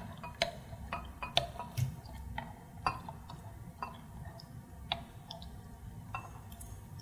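Light, irregular clicks and taps of glassware, about one every second, as milk is poured slowly from a small glass bowl into a glass measuring cup.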